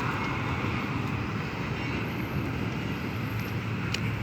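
Train passing a railroad crossing: a steady, even rumble with a low hum underneath.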